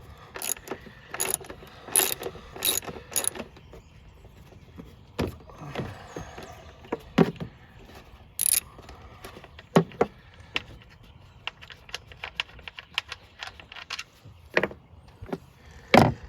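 Hand tools working 10 mm bolts on a car engine's air intake: a socket ratchet clicking and metal tools clinking in short sharp strikes, with a louder knock near the end.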